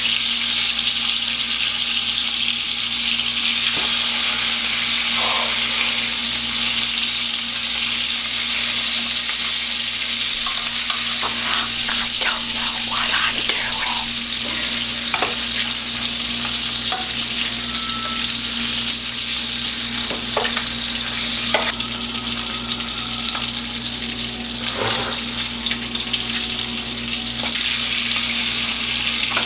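Steak frying in melted garlic butter in a pan, a steady sizzle with scattered crackles as the hot fat spatters. A steady low hum runs underneath.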